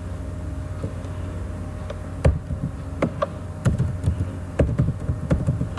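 Steady electrical hum on the recording, with a run of sharp clicks starting about two seconds in and coming faster near the end: computer keyboard keystrokes as a command is typed.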